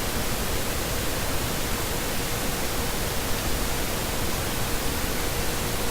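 Steady, even hiss of background noise with a faint steady tone underneath; nothing starts or stops.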